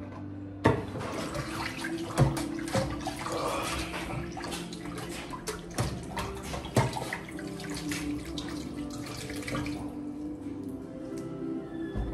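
Tap water running into a stainless steel kitchen sink while hands wash and handle a cloth in the basin, with scattered knocks and clatter; the water stops about ten seconds in.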